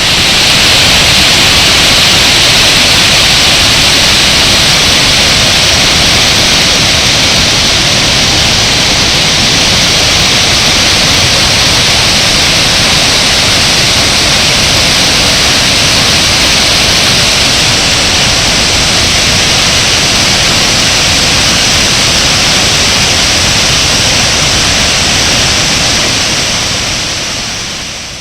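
Victoria Falls: a loud, steady rushing roar of falling water and spray, even and unbroken, fading in at the start and out at the end.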